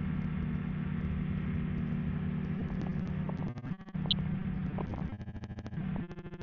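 Ultralight trike's pusher engine droning steadily in flight, with wind rush. From about halfway the sound repeatedly breaks up into rapid, choppy stutters and dropouts.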